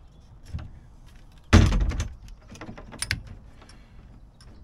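Clicks and knocks of tools being handled while drill bits are swapped, with one short, loud rattling clatter about one and a half seconds in.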